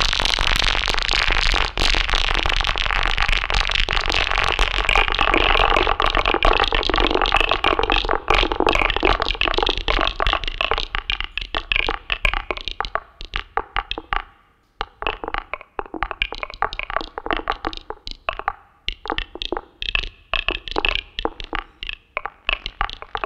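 Contemporary electroacoustic ensemble music with electronics: a dense, crackling noise texture made of rapid clicks that thins out after about ten seconds into sparser, separate clicks, almost dropping away for a moment midway.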